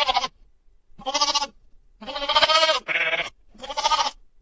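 Goat bleating repeatedly: five quavering bleats about a second apart, the longest about two seconds in.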